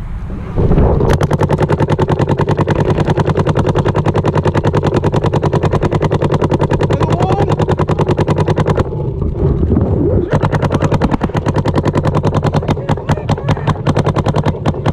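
Paintball marker firing long, rapid, evenly spaced strings of shots close to the microphone, most likely the player's own Planet Eclipse Oceans CS2 electropneumatic marker. The firing starts about a second in, stops for a moment a little past the middle, then resumes in shorter strings.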